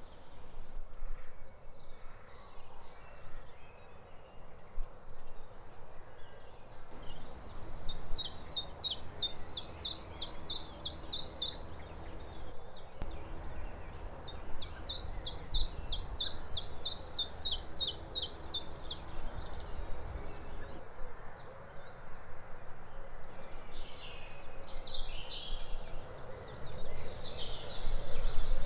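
Common chiffchaff singing its repeated, hesitant chiff-chaff notes in two long runs. About 23 seconds in, a Eurasian treecreeper's high-pitched song follows, running quickly down in pitch before flicking up at the end, and it starts again near the end.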